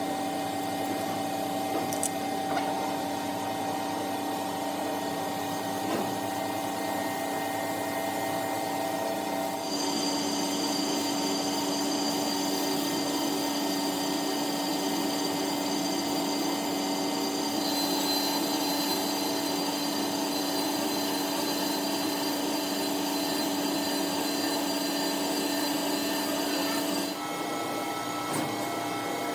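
A steady mechanical whine of a machine or power tool running, with several held tones. The mix of tones changes abruptly three times: about a third of the way in, just past halfway, and near the end.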